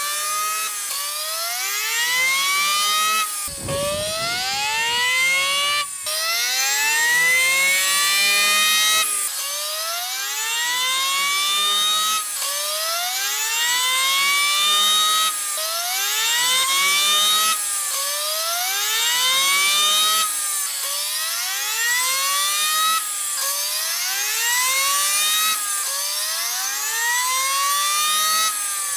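A 12-valve Cummins turbodiesel inline-six on a chassis dyno making full-throttle pulls, played back sped up. Each pull is a rising whine that climbs for two to three seconds and cuts off sharply, about a dozen pulls one after another.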